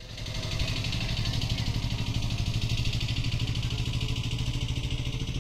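An engine running steadily at idle with a fast, even pulsing beat. It fades in at the start.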